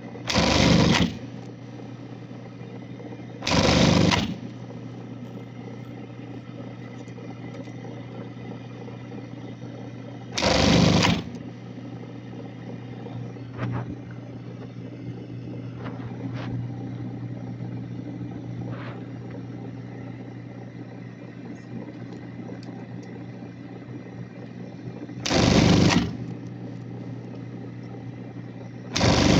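Brother industrial sewing machine: its motor hums steadily while the machine stitches in five short runs of under a second each, near the start, about 4 s in, about 11 s in, about 26 s in and right at the end.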